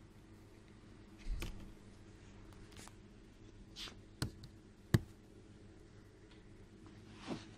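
Quiet shop interior: a steady low hum with a few scattered sharp knocks and clicks, the loudest about five seconds in.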